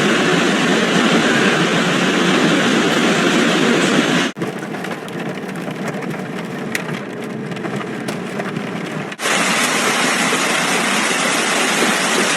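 Heavy hail pounding on hard surfaces in a dense, steady clatter. The sound cuts abruptly twice: a quieter stretch from about four seconds in has single stones cracking out sharply, and from about nine seconds in it is loud and dense again.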